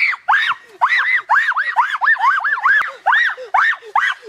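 A person's rapid, high-pitched yelping cries, several a second, each rising and falling in pitch.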